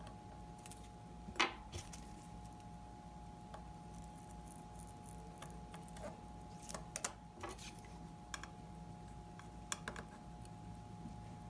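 Small metal watchmaker's tools and watch parts of a Seiko watch being handled: scattered light metallic clicks and taps, the sharpest about a second and a half in and a quick cluster around seven seconds, over a faint steady hum.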